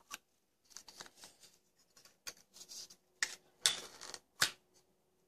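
Irregular clicks, taps and rustles of a home-made prototype puppet eye-blink mechanism being handled and worked by hand, with a louder scrape about three and a half seconds in and a sharp click soon after.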